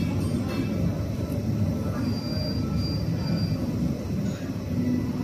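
Steady low rumble of restaurant background noise, with faint voices under it.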